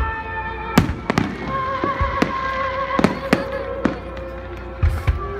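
Aerial firework shells bursting in a rapid, irregular series of sharp bangs, about eight in five seconds, during a fireworks finale.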